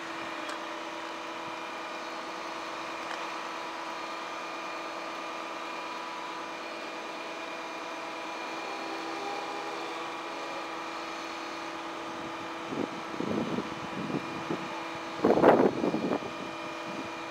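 Steady, even hum of the Volvo FM highreach fire truck's diesel engine running to drive the aerial platform's hydraulics. Irregular noisy bursts come in over the last few seconds, the loudest about fifteen seconds in.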